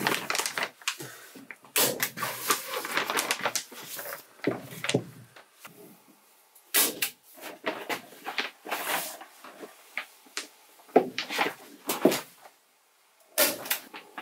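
Plastic vapor barrier sheeting crinkling and rustling as it is pulled and pressed against the wall studs. Several sharp clacks of a staple gun fixing it, most of them in the second half.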